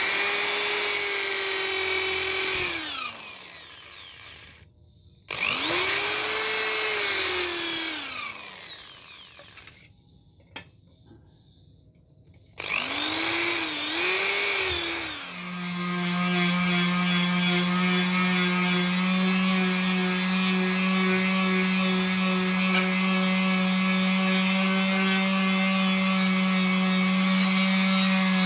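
Corded electric drill boring into a block of dark wood, in three short runs that each spin up, hold and wind down. From about halfway, an electric palm sander runs steadily with a lower, even hum as it sands a wooden handle.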